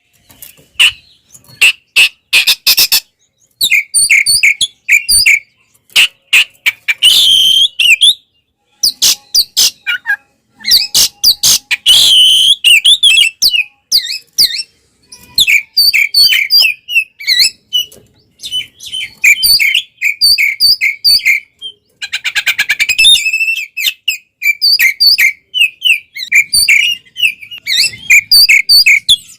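Oriental magpie-robin (kacer) singing a full, excited song. Quick runs of repeated chirps alternate with dry rattling clicks and a few loud whistled notes, broken by short pauses. This is the vigorous 'fighting' song that keepers play to provoke other magpie-robins.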